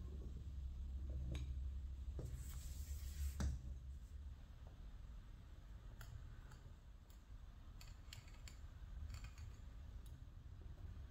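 Pizza-wheel cutter rolling through soft bread dough on a wooden board. There is a short scraping rasp about two seconds in, then scattered light clicks.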